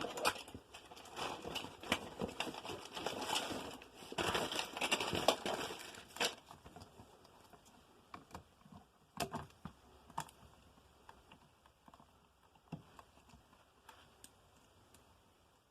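Scissors and electrical wiring being handled: a run of sharp clicks and rustling for about six seconds, then a few scattered clicks that die away.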